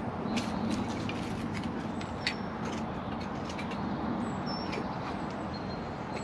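Birds chirping in short high notes over a steady low rumble, with scattered sharp clicks and taps.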